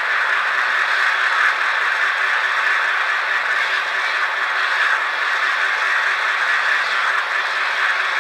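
Steady, rattly, tinny diesel-engine idle from a stationary N-scale FP9 locomotive model's onboard sound speaker, with almost no bass.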